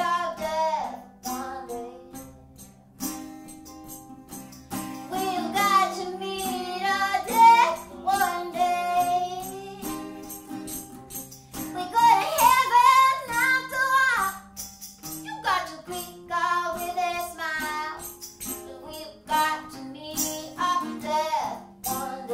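Live band music: a high voice singing over held instrumental chords, with frequent short percussion hits.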